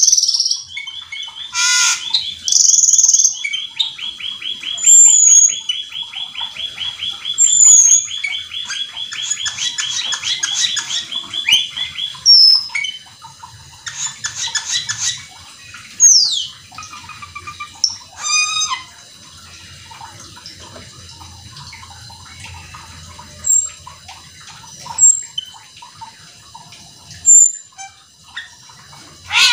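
Asian glossy starling (cucak keling) singing hard: a long rapid buzzy trill of about ten seconds mixed with sharp whistles and squeaky notes, then sparser short whistles and slurred calls.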